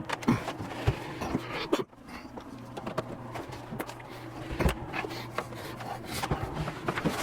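Handling noise as a 3D printer and its filament unit are turned around and shifted: scattered knocks and clicks with rubbing and scraping in between, over a steady low hum.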